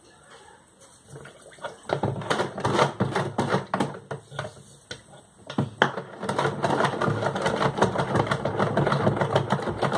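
Sugar poured into a plastic pitcher of liquid with a faint hiss. From about two seconds in, a spoon stirs briskly, clattering rapidly against the pitcher's plastic sides.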